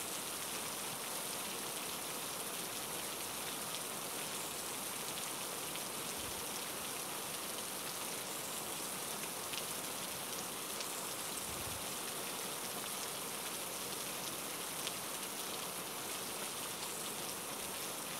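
Heavy rain falling steadily, an even hiss with no break.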